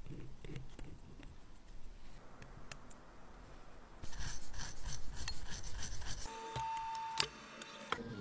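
Light clicks of small tools on a watch movement. About four seconds in comes a rapid rasping rub as a pegwood stick scrubs a steel movement bridge. In the last two seconds a steady tone sounds, with one sharp click.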